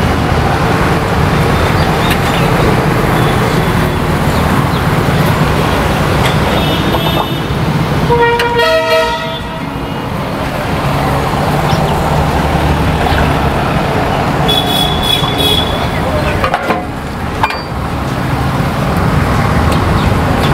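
Road traffic: a steady low rumble of vehicles with horns tooting twice, briefly about eight seconds in and again about fifteen seconds in.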